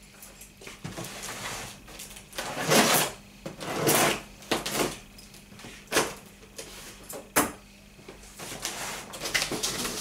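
Cardboard box being opened: the tape on its lid is cut, giving several short scraping, tearing noises about a second apart. Near the end the cardboard flaps rustle and rub as they are lifted.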